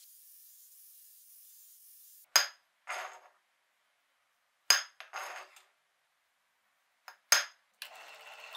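Three sharp hammer blows on a punch set against a round steel bar, each followed by a softer short rattle, marking the spot to drill. Near the end a bench drill press motor starts and runs steadily.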